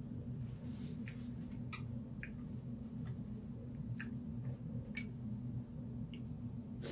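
A person eating: scattered short clicks and mouth smacks, about half a dozen, over a steady low hum.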